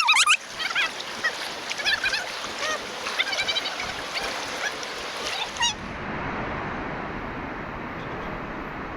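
Birds calling: many short, repeated calls overlapping, several a second. About six seconds in they cut off abruptly and give way to a steady, even noise.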